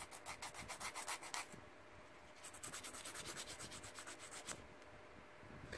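Emery board nail file filing plastic acrylic nail tips to shape, with quick back-and-forth strokes, about six a second. The strokes come in two runs with a pause of about a second between them.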